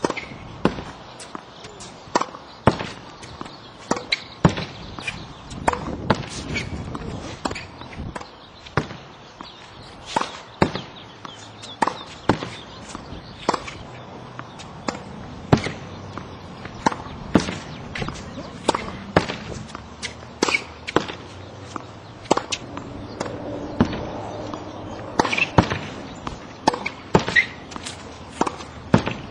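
A tennis ball being hit over and over in practice: sharp pops of the ball off the racket strings, off a practice backboard and bouncing on the hard court, coming irregularly about one or two a second.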